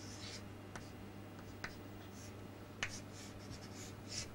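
Pen writing on a surface: short scratchy strokes with a few sharp clicks, over a steady low electrical hum.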